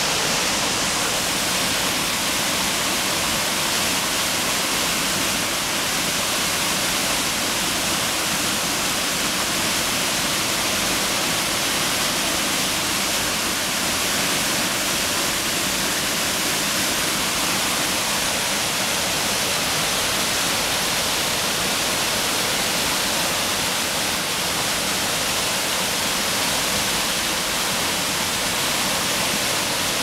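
Small waterfall cascading over rock boulders into a pool: a steady, even rush of falling water.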